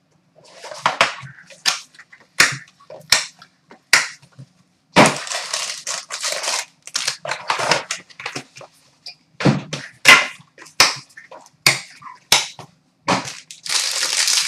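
Packaging of a sealed hockey card box being torn and crinkled open by hand: a run of sharp crackles and snaps with short stretches of rustling.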